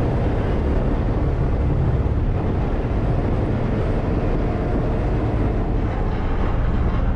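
Steady low drone of the roll-on, roll-off car ferry's engines under way, with water rushing along the hull.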